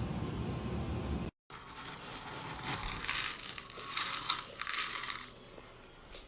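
Music that cuts off abruptly about a second in, then irregular bursts of crinkling and rustling noise for about four seconds before it quiets down.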